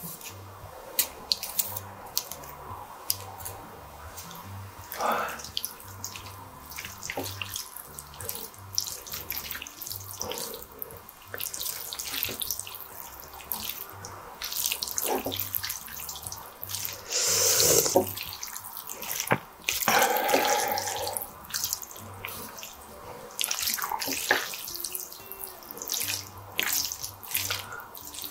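Squid ink spaghetti being tossed and stirred in a plate with wooden chopsticks: wet, sticky noodle sounds with many small clicks of wood on the plate, and a few louder bursts of mixing.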